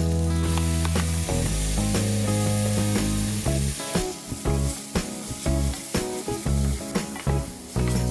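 Hot oil sizzling in a stainless steel frying pan as minced garlic is added to chili flakes and stirred with a spatula. The sizzle grows louder about half a second in, with background music underneath.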